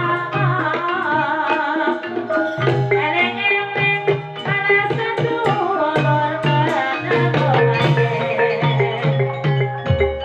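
Javanese gamelan music for an ebeg horse-dance performance: hand-drum strokes in a steady rhythm over ringing metallophone notes and a low repeating bass pulse, with a high wavering melody line over it.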